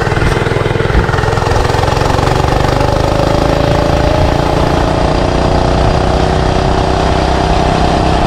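Small 105cc four-stroke engine of a stock mini bike running, its pitch easing down over the first few seconds and then holding fairly steady, with one sharp tick about a second in.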